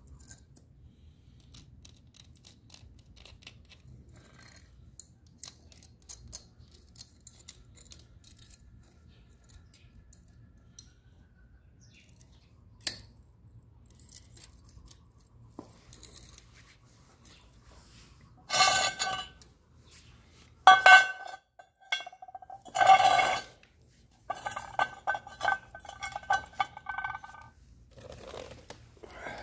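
Cooling weld spot and slag on concrete with faint scattered ticking and crackling. From about two-thirds in come several loud, ringing clinks in quick bursts.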